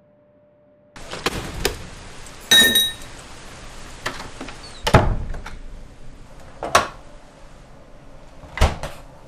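Keys dropped into a cut-glass bowl, a short clatter with a brief glassy ring, followed by three separate knocks or thuds; the last, near the end, comes as a refrigerator door is pulled open.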